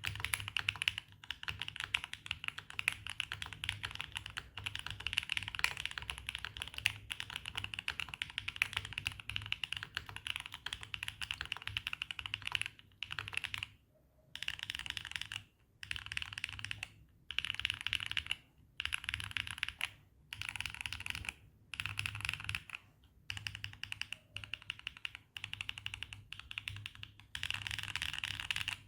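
Fast typing on a Neo80 mechanical keyboard with Gateron Jupiter Banana tactile switches, mounted on a carbon-fibre plate with full foam, under Swagkeys Classic Red keycaps; the keystrokes have a clacky tone. A steady flurry of keystrokes runs for about the first half, then it breaks into a series of short bursts with brief pauses between them.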